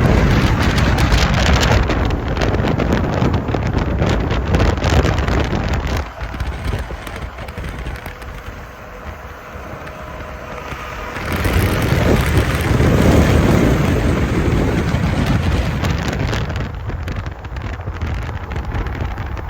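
Rumbling ride noise of a moving vehicle with wind buffeting the microphone. It eases off for a few seconds about six seconds in, then builds back up.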